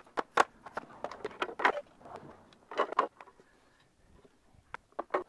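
Light knocks and clacks of wooden beehive parts being handled and fitted together: scattered sharp taps, with a couple of short clattery runs.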